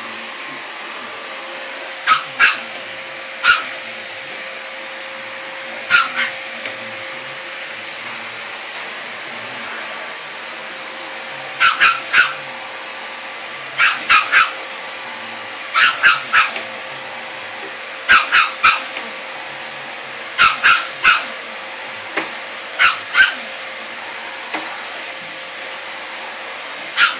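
Chihuahua-mix dog barking in short, sharp yaps, mostly in quick runs of two or three, over a vacuum cleaner running steadily. The barks begin about two seconds in; the dog is barking at the vacuum cleaner.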